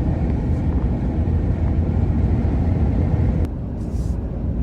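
Steady low road and engine rumble heard inside the cabin of a moving car on the highway. About three and a half seconds in there is a click, and the rumble drops a little in level.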